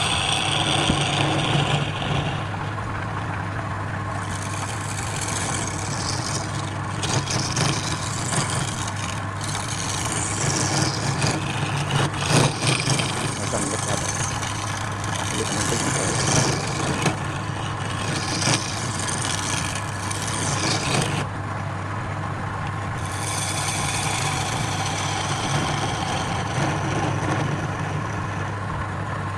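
Woodturning lathe's electric motor running with a steady hum, while a tool cuts or scrapes the spinning wood in stretches of hissing that stop for a second or two now and then.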